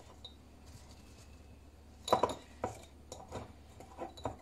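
A small glass jar knocking and clinking as dried tomatoes are pressed into it by hand. A sharp knock about two seconds in is the loudest, followed by a second knock and a few lighter taps.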